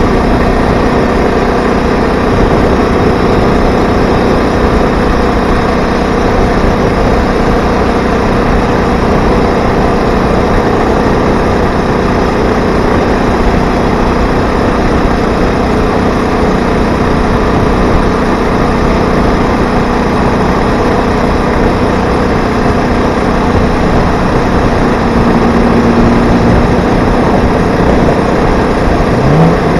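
80cc two-stroke bicycle engine kit running steadily at high speed under way, its pitch holding even, with a brief rise in pitch near the end.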